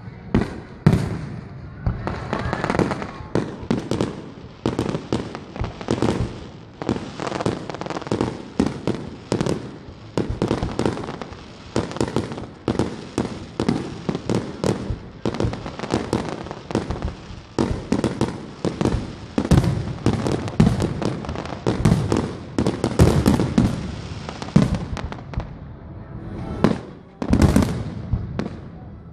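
Aerial fireworks display: shells bursting in rapid succession, a dense run of sharp bangs and crackles several a second, with a few louder booms, notably about a second in and near the end.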